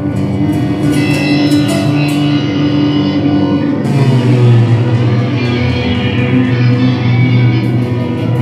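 Live improvised experimental music: electric guitar and bass held on long sustained notes over looped electronic sounds, with scattered high percussive clicks. The low notes shift about four seconds in.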